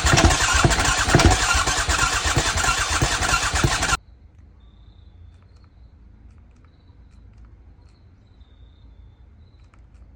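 Aprilia SXV450 V-twin spun on its electric starter, cranking in fast even pulses without catching, then stopping abruptly about four seconds in. The engine won't fire after a new fuel-tank connector was fitted.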